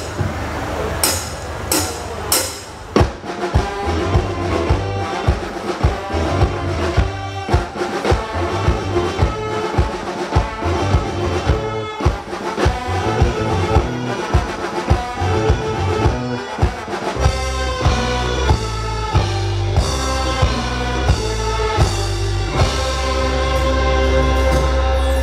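Thai luk thung band music through a PA system: a drum kit beat about twice a second under a brass-like melody, with a heavy bass line coming in about 17 seconds in.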